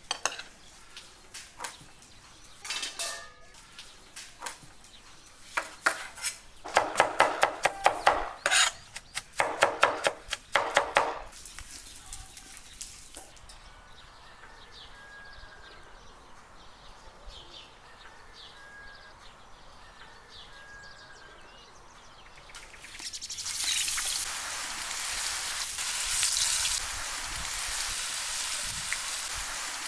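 Cooking sounds: a run of clicks and rattling, scraping strokes of utensils against cookware. Later a steady loud sizzle of food frying in hot oil starts and holds, with faint bird chirps in the quieter stretch before it.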